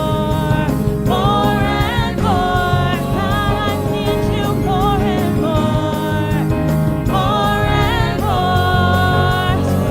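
Gospel worship song: voices singing a melody over steady instrumental accompaniment.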